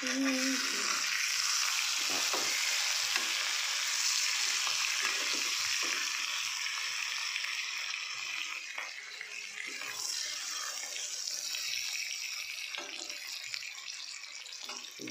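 Stuffed gourd pieces sizzling in hot oil in a kadhai, turned now and then with a spatula, which adds faint scrapes. The sizzle eases a little in the second half.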